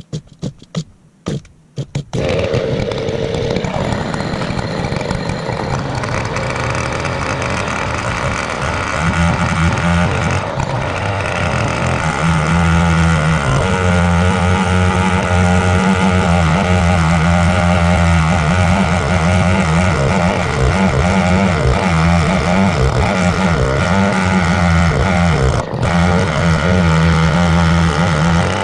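Stihl 070-clone 105cc two-stroke chainsaw started with a few short sounds and catching about two seconds in. It then runs and goes up to a higher, steady full-throttle speed around ten seconds in, holding there while it cuts through a pine log in an Alaskan chainsaw mill.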